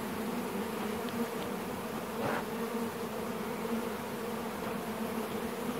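Carniolan honeybees buzzing in flight around a hive, a steady hum of many wings.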